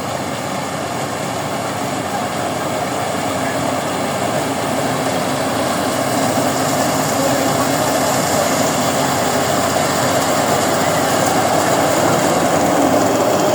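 Rice combine harvester running, a continuous machine drone of engine and cutting gear that gets gradually louder.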